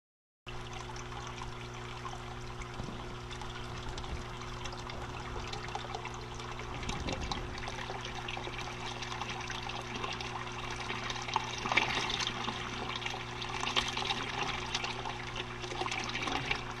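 Water gurgling and trickling as a bell siphon drains an aquaponic gravel grow bed, growing louder and busier about eleven seconds in, over a steady low hum.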